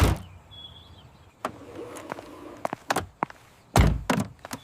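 Car doors and bodywork thudding: a heavy thud at the start, scattered lighter knocks, and two heavy thuds close together near the end. A brief high squeak comes about half a second in.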